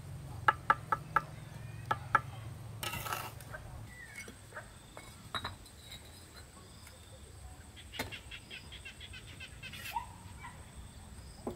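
Steel bricklaying trowel tapping a brick down into its mortar bed: six sharp taps in the first two seconds. Later comes a quick run of clicking notes.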